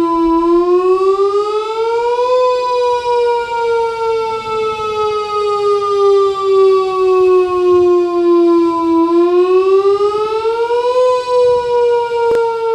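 Whelen WS-1000 tornado siren sound in an edited variation, wailing. Its pitch rises for about two seconds, then falls slowly for over six, and the cycle starts again about nine seconds in with a rise and a slow fall.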